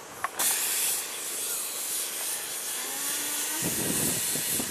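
Paint spray gun hissing steadily as it sprays waterproof heat-insulation coating, the spray starting abruptly about half a second in.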